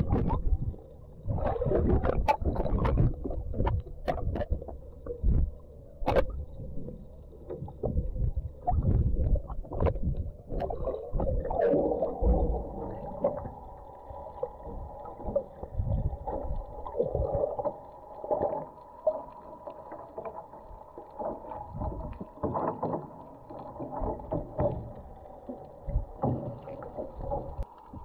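Muffled underwater sound picked up through a camera in the sea: water sloshing and irregular knocks and bumps from the swimmer's movement, joined from about twelve seconds in by a steady hum carried through the water.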